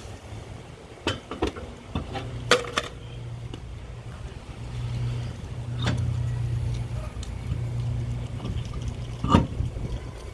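Scattered metal knocks and clunks, about six in all, as a wheel with its tyre is handled and fitted back onto the hub; the loudest comes near the end. A steady low hum runs underneath through most of the middle.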